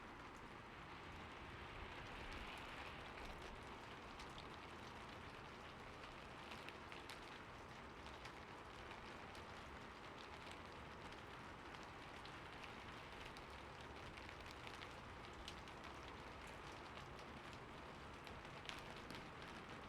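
Soft, steady rain with many scattered drop ticks spattering on hard surfaces.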